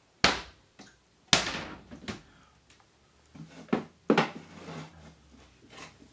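A series of sharp household knocks and thuds, about six of them. The two loudest come in the first second and a half, with fainter knocks spread through the rest.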